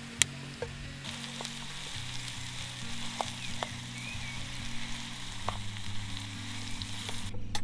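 Food sizzling as it fries, with scattered sharp pops and crackles, over soft background music of low held notes. The sizzle cuts off suddenly near the end.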